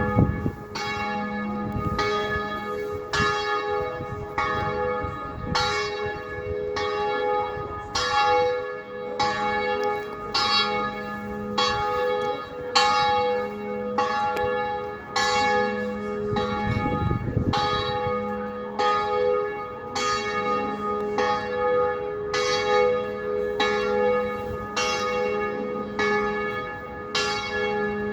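Several bells ringing in a steady, even sequence, about one strike every four-fifths of a second, each note ringing on into the next. Wind rumbles on the microphone at times.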